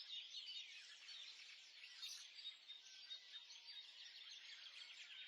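Faint, dense chorus of many small songbirds chirping and twittering, high-pitched and overlapping.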